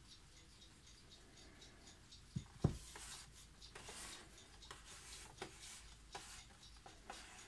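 Impex Rhythm 7RM008 mechanical mantel clock being handled, its movement ticking faintly. About two and a half seconds in, one knock with a low thud as its plastic case is set down on a hard surface. Then light rubbing and small knocks from a hand on the case.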